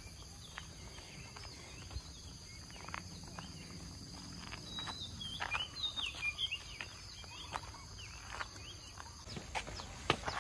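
Countryside ambience: insects keep up a steady high drone, and a bird sings a run of warbling chirps around the middle, with scattered soft taps.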